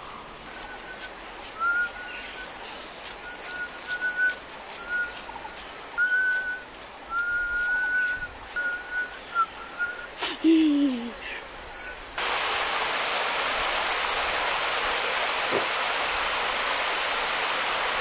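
Loud, steady high-pitched drone of jungle insects, with short repeated bird notes beneath it. About twelve seconds in it cuts off abruptly to the even rush of a waterfall.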